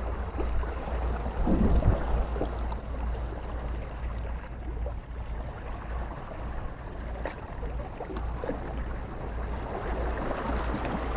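Wind rumbling on the microphone over sea water lapping against breakwater rocks: a steady, even outdoor wash with a few faint ticks.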